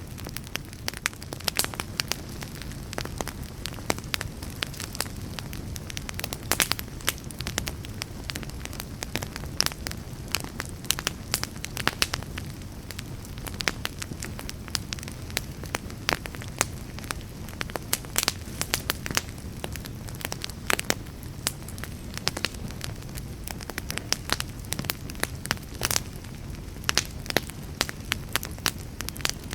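Wood fire burning with frequent sharp crackles and pops over a steady low rumble of flames.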